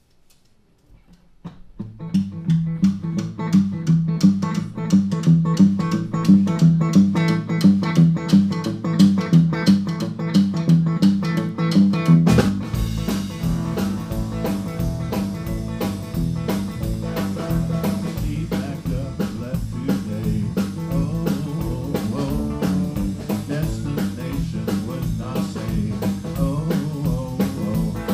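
Blues band playing live: a Telecaster-style electric guitar starts a rhythmic riff about two seconds in, and the full band with bass and drums comes in heavier about twelve seconds in.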